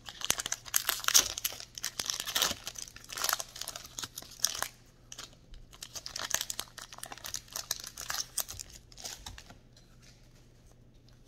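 Foil Pokémon TCG booster pack wrapper being torn open and crinkled in the hands: dense crackling for about the first five seconds, then thinning to scattered crinkles that die away near the end.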